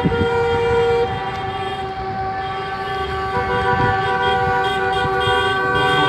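Car horns held down together in one long steady blare, at least two horns at different pitches. The lower horn drops out about a second in and comes back a little past the middle.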